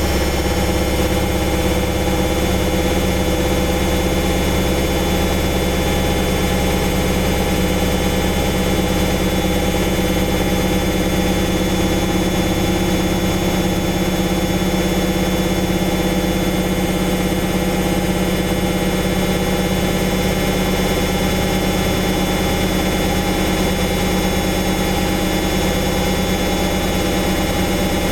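Samsung Eco Bubble front-loading washing machine on its spin cycle: the drum spins at a steady speed with a constant motor hum and whir.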